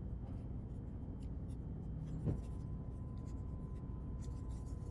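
Light scratching and scraping of a hand tool working old display adhesive off an iPhone 11 Pro Max frame, over a steady low hum, with one short knock a little past two seconds in.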